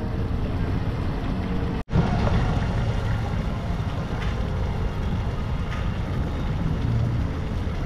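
Steady low rumbling noise, broken by a split-second dropout about two seconds in.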